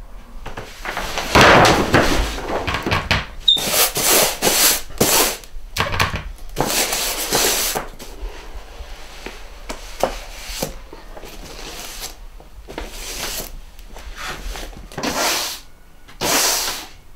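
Long-handled brush or broom scraping across a board in a run of irregular strokes, each about a second long, with a few knocks between them.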